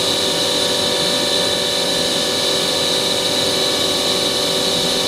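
Mazak Quick Turn 200MS CNC lathe's sub-spindle spinning at a steady speed with no cut, a steady mechanical whine made of several held tones.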